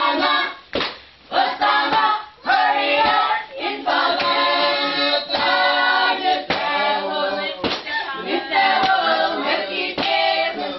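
A group of voices singing together, with hand claps about once a second.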